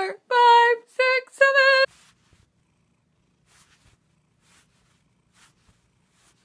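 For the first two seconds a high-pitched voice counts the last few numbers up to seven. After that a cat purrs faintly and steadily, with soft breaths about once a second.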